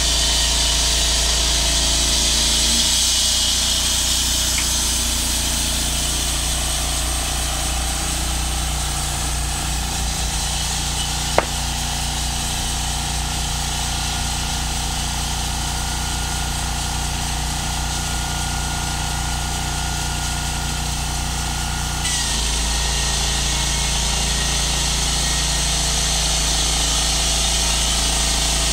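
Portable engine-driven band sawmill running, its blade cutting lengthwise through a large squared log with a steady hum and a high hiss. The hum shifts about three seconds in and shifts back about seven seconds before the end, and a single sharp click comes near the middle.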